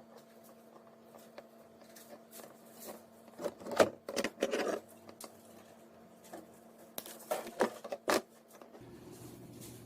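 Crackling plastic rustles and clicks from hands working a stripped Cat6 UTP cable, pulling out its plastic cross spline. The sounds come in two short clusters, about a third of the way in and again near the end.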